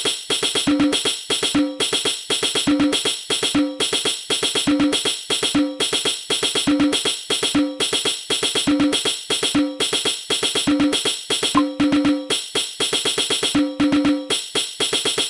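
Darbuka and hadroh percussion rhythm in a fast koplo style, a repeating loop of deep resonant strokes and crisp high slaps in tight, even patterns.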